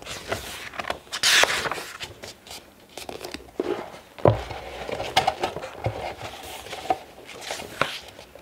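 Pages of a paper art magazine being turned and handled: irregular rustling with a louder page turn about a second in and a few sharp taps.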